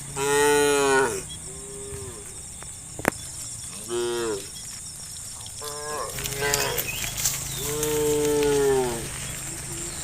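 Cattle mooing repeatedly in separate calls: a loud moo at the start, shorter ones in the middle and a long loud moo near the end. A single sharp click comes about three seconds in.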